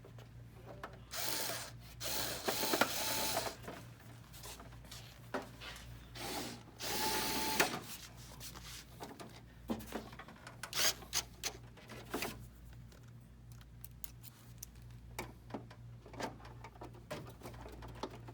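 Power screwdriver running in three short bursts in the first half, driving screws into the hole punch unit of a copier finisher, followed by scattered clicks and knocks of metal and plastic parts being handled.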